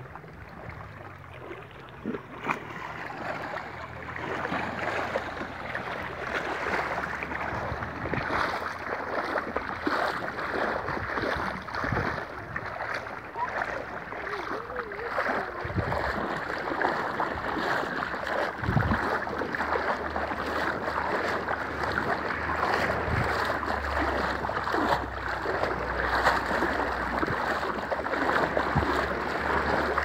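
Shallow seawater sloshing and lapping at the water's edge, with splashes from bare feet wading through it in the second half. Wind on the microphone adds a low rumble.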